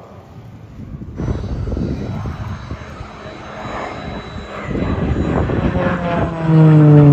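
Pilatus PC-9 trainer's PT6A turboprop engine and propeller as the aircraft flies overhead. The sound grows louder, and from about six seconds in a strong tone with its overtones drops in pitch as the plane passes close by. The loudest moment comes near the end.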